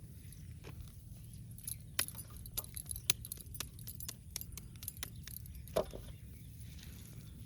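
Irregular light clicks and clinks of small hard objects being handled, several a second for a few seconds, over a steady low rumble.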